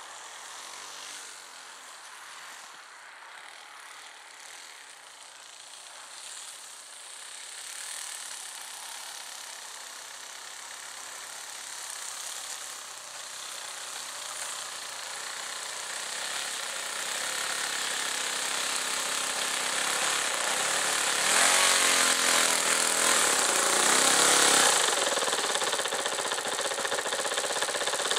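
Small engine and propeller of a ski-equipped RC model Piper Cub buzzing as the plane taxis across the snow toward the microphone. It grows steadily louder as it approaches. Near the end, with the plane close by, the pitch rises and falls with throttle blips.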